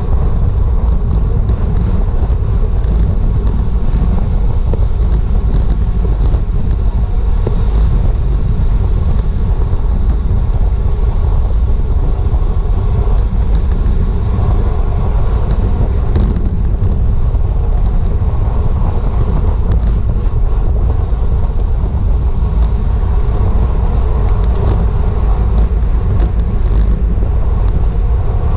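Wind rushing over a GoPro microphone on a bicycle moving at criterium race speed: a loud, steady low rumble, with scattered light clicks and ticks throughout.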